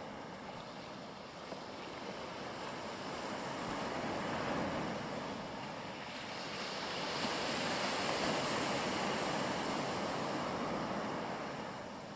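Sea waves washing onto a rocky shore: a steady rush of surf that swells about four seconds in and again from about seven to eleven seconds.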